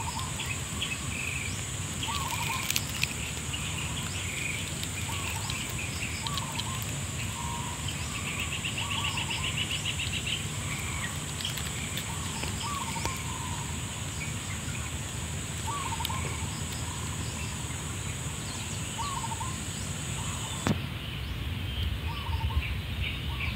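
Woodland ambience: a bird repeats a short call every second or so, with scattered chirps and a brief trill from others. Behind them runs a steady high-pitched buzz that cuts off abruptly near the end, over a low rumble.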